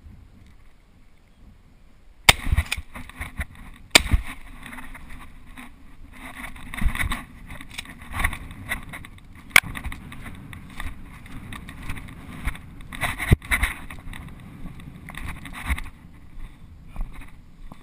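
A shotgun shot about two seconds in, with a second sharp bang or knock a couple of seconds later. It is followed by steady rustling footsteps through grass and knocks of the head-worn camera being jostled.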